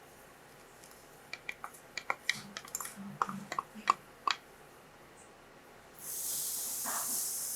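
A quick run of light clinks and taps, like kitchenware being handled, then a steady high hiss that starts suddenly about six seconds in.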